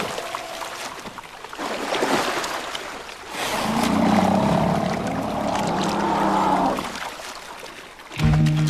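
Water splashing as an African elephant calf rolls in the shallows of a river, then a low, drawn-out elephant call lasting about three seconds. Music comes in near the end.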